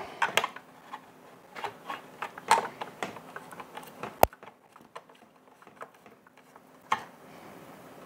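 Small scattered clicks and ticks of a screwdriver turning out a screw in a Ryobi blower's plastic casing, with a sharp click about four seconds in and another near the end.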